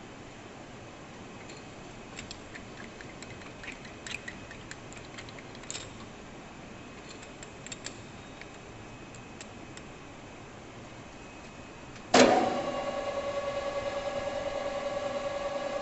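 A few light metallic clicks and taps, then about twelve seconds in a metal lathe is switched on with a sudden jolt and keeps running. It gives a steady hum of several tones with a slight, even pulse.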